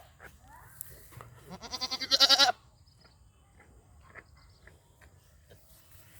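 A goat bleating: one loud, wavering bleat about a second long, about two seconds in, that swells and then cuts off sharply. Fainter calls come before it and light knocks follow.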